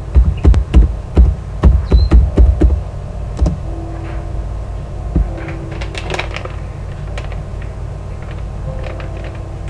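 A quick run of taps and knocks close to the microphone, like typing on and handling the recording laptop, for about three seconds. About six seconds in, a short crinkle of a packet being handled. Faint piano music plays underneath.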